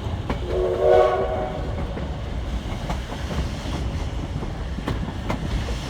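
Short steam locomotive whistle blast of several tones together, lasting under a second, about half a second in. Under it the passenger train rolls on with a steady low rumble and scattered clicks of wheels over rail joints.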